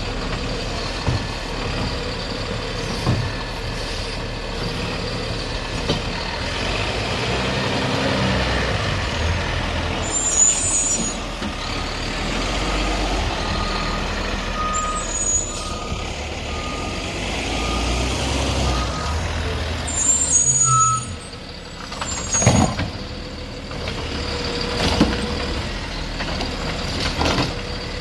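Garbage truck with an automated side-loader arm running on its route: steady engine rumble, several short air-brake hisses, and a run of reversing beeps about halfway through. A few sharp knocks come near the end.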